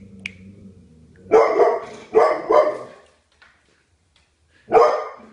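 Labrador barking at the television: three loud barks close together about a second and a half in, then one more near the end.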